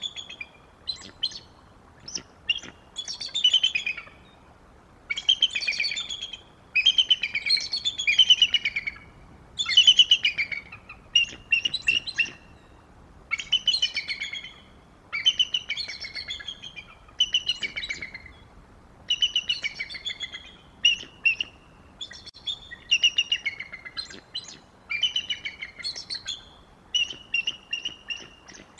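Bald eagle calling repeatedly: chattering, piping call series about every one to two seconds, the high notes stacked in quick pulses.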